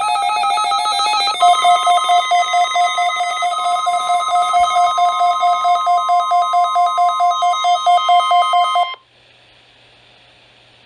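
NOAA Weather Radio warning alarm sounding for a weekly test: a loud electronic tone that changes pattern about a second and a half in, then pulses at about four beats a second over a steady high tone. It cuts off suddenly about nine seconds in, leaving radio hiss.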